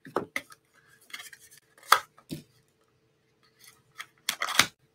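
Small pot of solid gel polish being handled and opened: a few sharp clicks and taps, the loudest about two seconds in, then a short scrape near the end.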